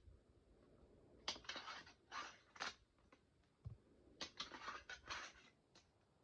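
Plastic fingerboard deck with no trucks or wheels scraping and tapping against the edges of a box and a small ledge, in two clusters of short scrapes with a soft low thump between them.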